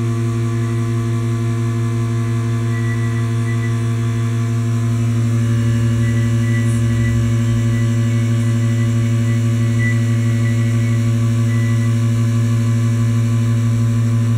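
Vacuum pump of a vacuum chamber machine running with a steady low hum, drawing the chamber down to a high vacuum; it gets slightly louder about five seconds in.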